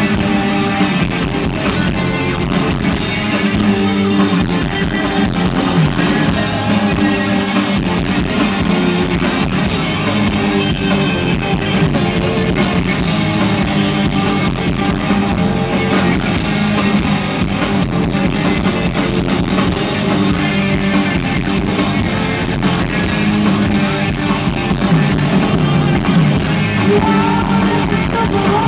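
Rock band playing loudly live, with electric guitars and drums, heard from the audience.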